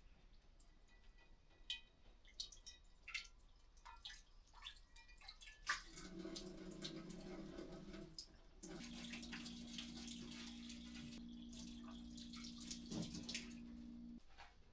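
A few light clicks and knocks, then water running from a tap with a small pump humming steadily; the water and hum cut off suddenly near the end.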